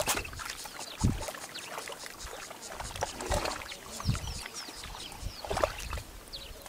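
Warthog piglets and a sow moving in a shallow mud wallow: wet splashing and sloshing of muddy water, with scattered short knocks and a few low thumps. Short high chirps come and go in the background.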